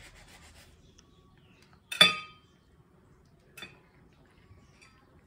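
Faint scraping of a knife on mango at the start, then about two seconds in a single sharp clink with brief metallic ringing as the knife is set down on a stainless steel tray, and a lighter click a moment later.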